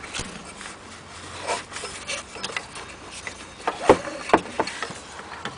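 Alternator drive belt being worked off its pulleys by hand: rubbing and scraping, with a few sharp knocks about four seconds in.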